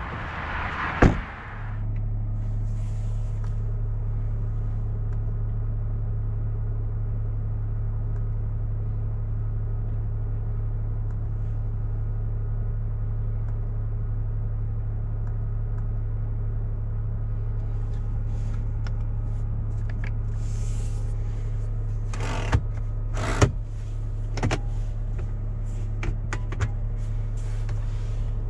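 A car door shutting with a single thump about a second in, followed by a steady low hum inside the closed cabin of a Renault Rafale. Several sharp clicks come near the end.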